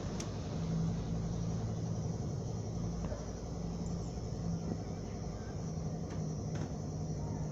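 Steady low rumble of distant traffic, with a few faint clicks.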